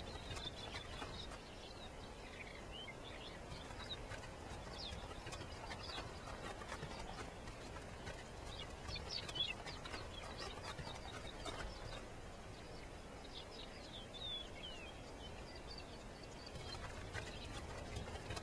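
Small birds chirping: scattered short, high chirps and quick gliding calls, coming in clusters about nine seconds in and again near fourteen seconds, over a low steady background noise.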